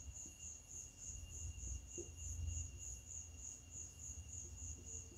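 Faint high-pitched chirping, pulsing evenly about four times a second, over a low steady hum, with a few faint strokes of a marker pen on a whiteboard.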